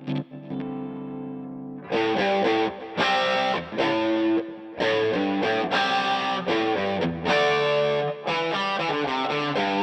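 Electric guitar played through a DVII amplifier with a dirt pedal: a chord left ringing softly, then from about two seconds in, loud driven chords in short phrases broken by brief stops.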